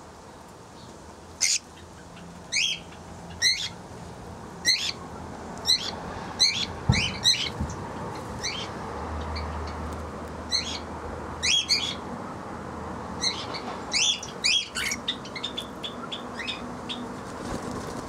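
Small aviary parrots giving short, sharp chirps over and over, about one or two a second, with a single soft thump about a third of the way through.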